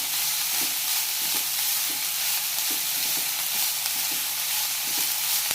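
Chopped chilli leaves and onion sizzling in coconut oil in a hot pan as they are stirred, with soft strokes of the spoon about every half second.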